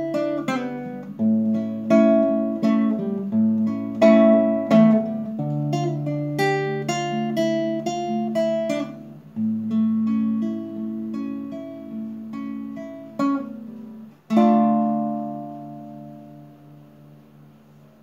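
Classical guitar playing the song's closing instrumental bars: picked notes and chords, thinning out after about nine seconds. A final chord about fourteen seconds in rings out and fades away.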